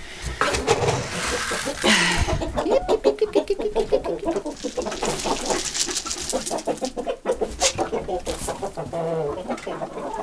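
A flock of chickens clucking busily and continuously. Feed is scooped from a plastic barrel and, around the middle, thrown in a rustling spray of grain onto the straw-covered coop floor.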